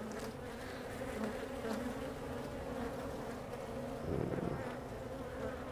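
Honey bees humming steadily over an open hive's frames, a low buzzing drone that rises a little in level for a moment about four seconds in.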